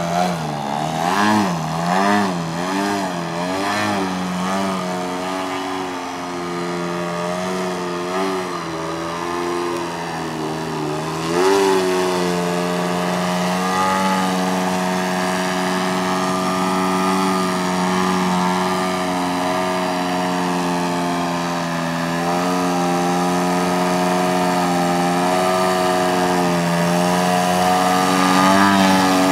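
3W 56iB2 twin-cylinder two-stroke petrol engine of a Wild Hare Edge RC aerobatic plane in flight. For the first few seconds its note swings up and down through the manoeuvres. About eleven seconds in it surges, then holds a nearly steady drone while the plane hangs nose-up on its propeller in a hover.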